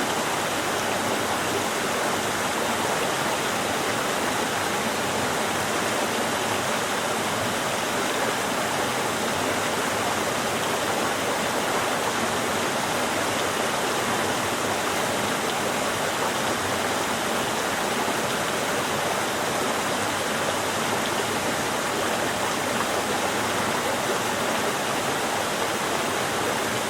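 Steady rush of the river's water running through Yufugawa Gorge, an even, unbroken sound of flowing water.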